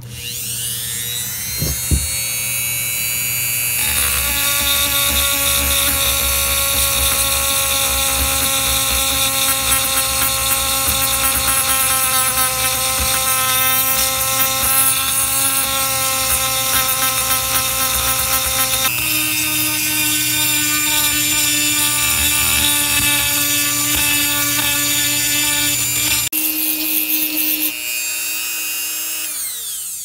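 Handheld rotary tool with a small grinding stone spinning up to a high-pitched whine, then grinding out the aluminium port of a two-stroke motorized-bike cylinder, with a rougher rumble while the stone is in contact. A few seconds before the end it runs free, then spins down.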